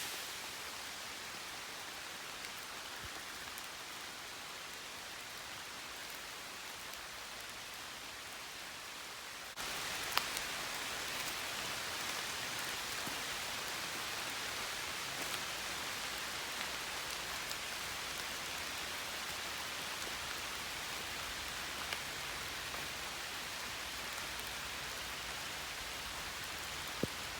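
Steady summer rain falling, a constant hiss with the odd sharper drop tick. It gets suddenly louder about ten seconds in.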